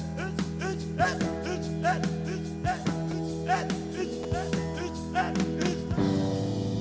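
Live rock band playing an instrumental passage with a steady beat. About six seconds in it turns to a fast rolling pattern.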